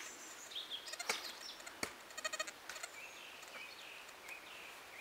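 Quiet outdoor ambience with scattered short high chirps and a brief trembling animal call about two seconds in. Two sharp clicks come about one and two seconds in.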